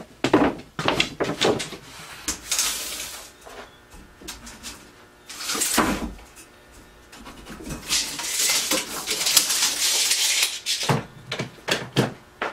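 Eastern red cedar boards being handled: a run of wooden knocks and clatters with scraping slides between them, and one heavier knock near the middle.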